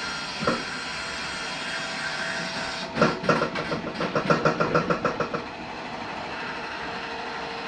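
Toy hauler's electric bunk-bed lift running as the bunks lower, a steady motor sound. From about three seconds in to about five and a half seconds a fast run of ticking rattles over it, and near the end it settles into a steady hum.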